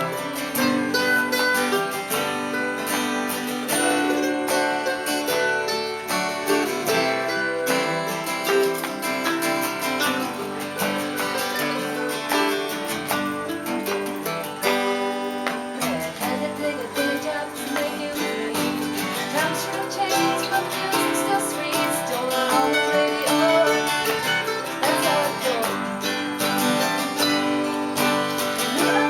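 Acoustic guitar playing a song, with singing heard at times.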